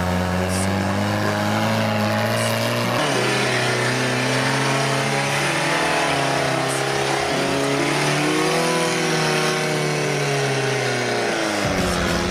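Off-road trial vehicles' engines revving up and down as they crawl through deep mud: first a tube-framed prototype, then, after a cut about three seconds in, a modified Suzuki Samurai. The engine pitch keeps rising and falling with the throttle.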